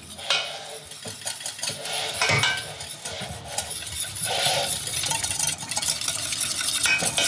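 Roux of melted vegan butter and flour being stirred in a pot, a kitchen utensil scraping and clicking irregularly against the pot.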